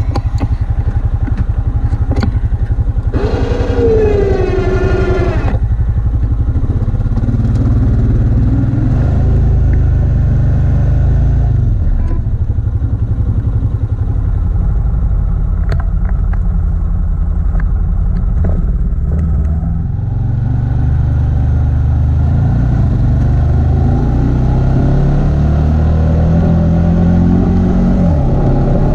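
ATV engine running while plowing snow, its pitch rising and falling with the throttle, with scattered clatter. A brief whine, falling slightly in pitch, comes about three seconds in.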